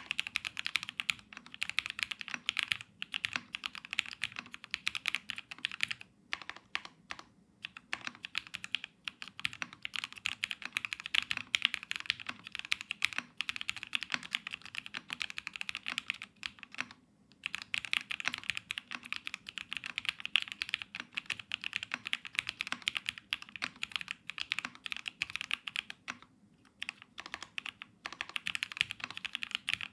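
Fast continuous typing on an Ayleen TKL mechanical keyboard with Everglide Aqua King linear switches in an aluminium plate and GMK keycaps, with brief pauses between bursts.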